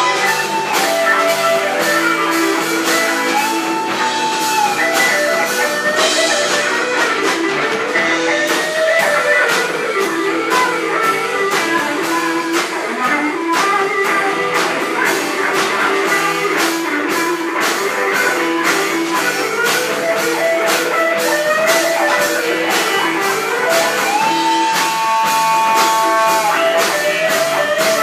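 Live rock band playing: an electric guitar leads over a steady drum beat, bass and keyboards. The lead holds long notes that bend in pitch, twice.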